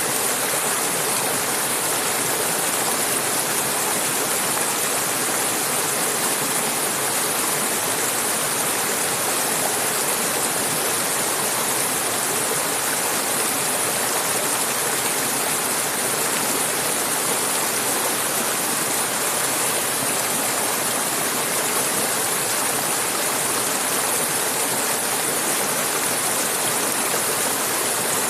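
Clear mountain river flowing over rocks: a steady, even rush of water with no breaks.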